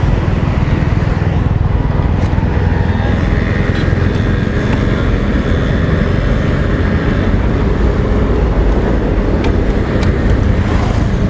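Steady low rumble of motor vehicles, with road traffic noise.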